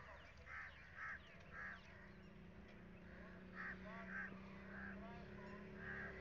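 Faint, short harsh bird calls repeating about every half second, with a pause in the middle, over smaller birds' chirping. A low steady engine hum comes in about two seconds in.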